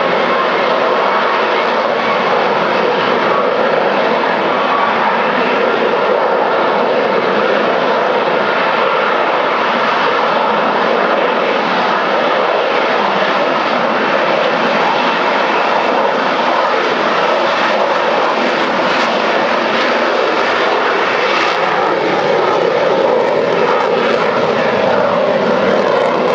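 Lockheed Martin F-35B's F135 jet engine and shaft-driven lift fan running in short-takeoff/vertical-landing mode, a loud, steady jet noise that holds without break as the jet hovers and moves off slowly in lift-fan-borne flight.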